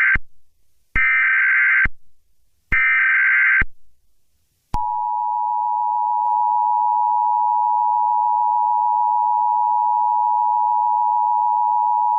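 Emergency Alert System SAME header: short buzzy bursts of digital data about a second apart, the last two whole. From about five seconds in comes the steady two-tone EAS attention signal, which announces the warning message.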